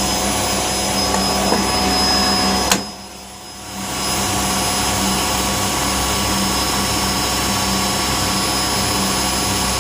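Whirlpool washing machine spinning its drum at high speed in its service test programme, a loud, steady whirr with steady tones. About three seconds in, a sharp click is followed by a sudden drop in the noise for about a second before it returns.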